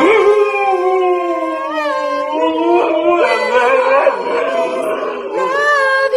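Siberian husky howling on cue in long, wavering, sliding howls, with a short break a little after five seconds. A second, lower voice overlaps in the middle.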